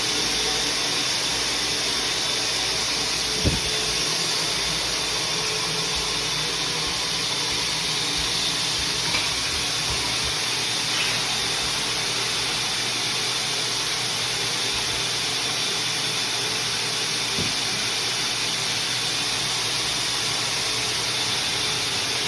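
HEPA duct-cleaning vacuum machine running, a steady rushing hiss through the air ducts. A few short knocks come through it, the sharpest about three and a half seconds in.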